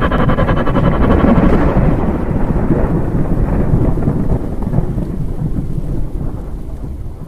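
Thunderstorm sound effect: a rolling rumble of thunder with rain, fading gradually toward the end.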